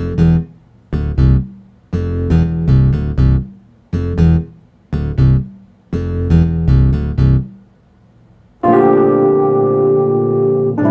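R&B-style keyboard music: short detached chords played in a syncopated, uneven rhythm, then after a brief pause one long held chord near the end.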